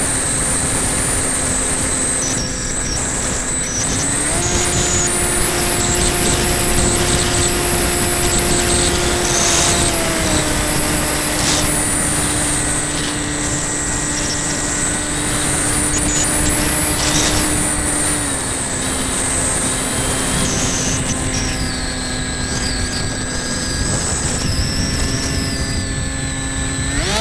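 Radio-controlled model plane's motor and propeller heard from on board, a steady hum over rushing wind. Its pitch steps up about four seconds in, eases down twice as the throttle is cut back, and climbs sharply again right at the end.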